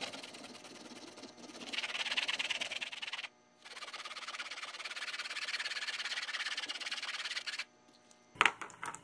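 Fine-tip Sharpie marker scratching across a stretched canvas in rapid hatching strokes, a dry rasping sound. It runs in two long stretches with a brief pause about three seconds in, stops near the end, and is followed by a few sharp clicks as the pen is handled.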